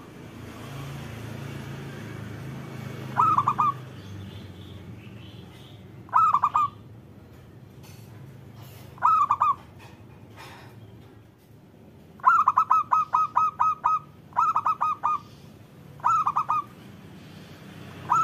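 Zebra dove (perkutut) cooing: short phrases of quick staccato coos about every three seconds, with a longer run of rapid coos about twelve seconds in, followed by two shorter phrases.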